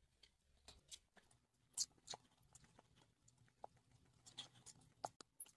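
Faint, irregular scraping and soft squelching of a spatula stirring thick curd-and-spice marinade paste in a metal kadhai.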